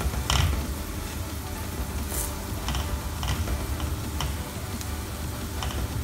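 Batter-coated bread slice frying in a little oil in a pan, sizzling softly. A wooden spatula presses it down, with a few light clicks and knocks scattered through, over a steady low hum.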